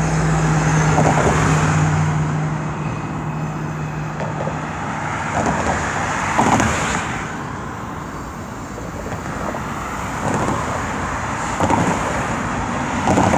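Road traffic passing close by, a steady rush of tyres and engines with a louder vehicle going by about six seconds in and others near the end. A steady low hum sits under it for the first few seconds.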